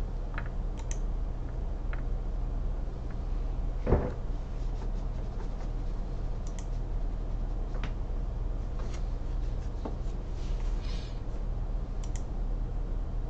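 Scattered light clicks of a computer mouse and keyboard over a steady low electrical hum, with one louder thump about four seconds in.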